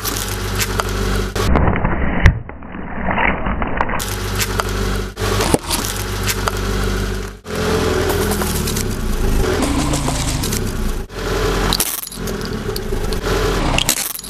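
A car engine running at low speed while a tyre rolls over and crushes objects, with cracking, crackling and crunching. The sound cuts abruptly several times from one short crush to the next.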